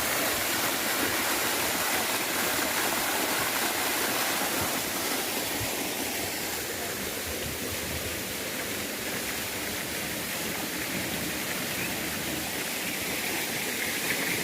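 Steady rushing of running water, like a stream or cascade, a little softer in the middle and louder again near the end.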